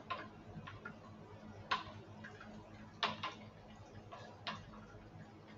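Pie shallow-frying in olive oil in a pan: the oil sizzles faintly and spits with irregular sharp pops, the loudest about a third and halfway through, over a low steady hum.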